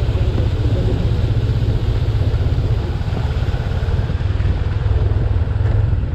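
Motorcycle engine running steadily under way, a loud, even low rumble with road and wind noise.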